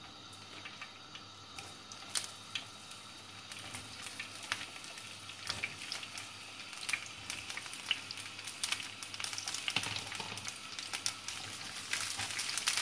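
Chopped green peppers sizzling in hot oil in a frying pan, with many small pops, getting louder as they fry; a spatula stirs them near the end.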